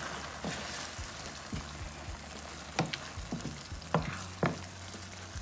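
Beef strips and bell peppers sizzling in brown gravy in a skillet, with a wooden spoon stirring through them and clicking against the pan several times, sharpest about three and four and a half seconds in.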